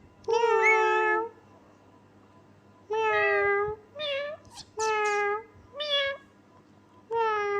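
Pet parrot imitating a cat's meow, six meow-like calls with gaps between them, the first and longest near the start.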